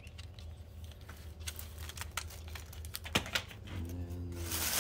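Irregular light clicks and taps of a model railroad gondola car being handled and set down, with one sharper knock a little after three seconds in. A steady rustling starts near the end.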